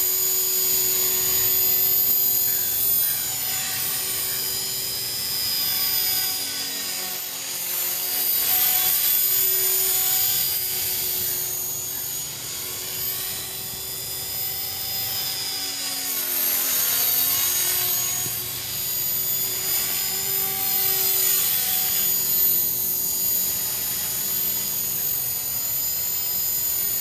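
Align T-Rex 450 Pro electric RC helicopter in flight: its brushless motor and rotor head give a steady high whine and buzz that swells and fades as it moves back and forth through the air.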